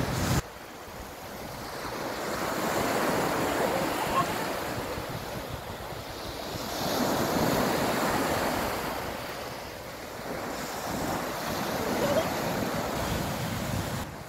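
Small sea waves breaking and washing up the sand at the water's edge, the surf swelling and ebbing about every four to five seconds.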